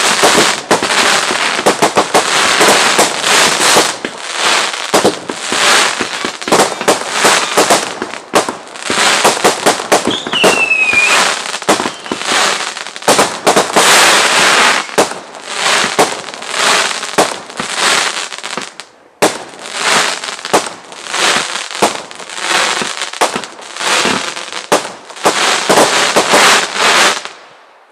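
Fireworks display: a dense, continuous barrage of aerial shell bangs and crackling stars, which stops abruptly near the end.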